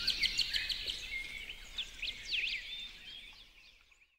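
Small songbirds singing and chirping, several voices at once, opening with a fast run of repeated high notes, about ten a second, then scattered varied chirps that fade away near the end.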